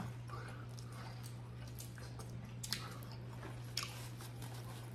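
Close-up mouth sounds of eating seafood-boil shrimp and crab: soft chewing with a few short sharp clicks, the loudest about two and a half and four seconds in, over a steady low hum.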